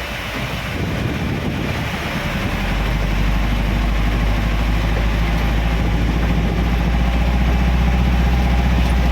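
Vehicle engine running, its low hum growing louder about two and a half seconds in and then holding steady, over a continuous hiss.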